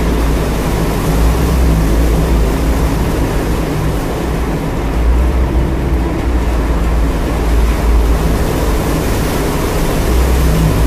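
Jeep driving slowly along a rough, wet dirt track: a steady low rumble of engine and tyres.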